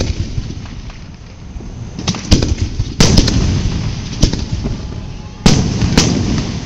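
Aerial fireworks shells bursting in a display: a series of about six sharp booms, each followed by a long low rolling rumble as it dies away.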